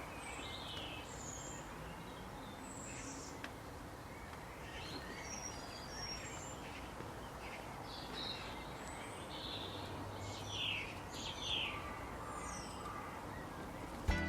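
Birds chirping: many short, high calls scattered over a steady background hiss, with two louder calls about three quarters of the way through.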